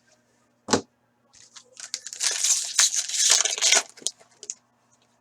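A foil card-pack wrapper is torn open and crinkled, giving about two seconds of crackling tearing after one sharp click. A few light clicks follow.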